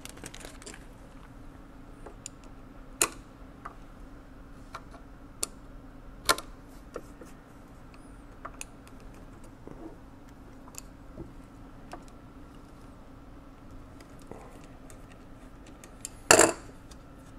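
Scattered small metallic clicks and taps as screws are backed out of the steel side panel of a 1917 Monroe mechanical calculator and handled. Near the end there is a louder double knock as the side panel comes free. A faint steady hum runs underneath.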